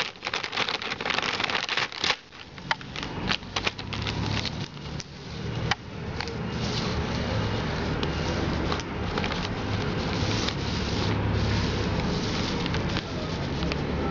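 A clear plastic bag crinkling and crackling as it is handled, with many sharp crackles in the first few seconds and lighter rustling after. A steady low rumble runs underneath from about six seconds in.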